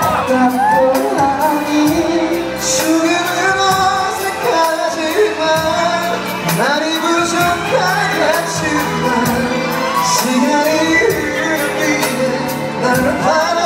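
Live pop vocals sung into a handheld microphone over a backing track with a steady beat, played through a PA in a large hall.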